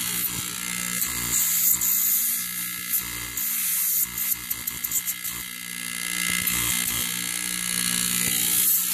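Air-conditioning compressor converted into a vacuum pump, running with a steady electric hum and a hiss of air at its intake. Around the middle the sound flutters unevenly as a fingertip is held against the brass intake fitting, where the pump is pulling a good vacuum.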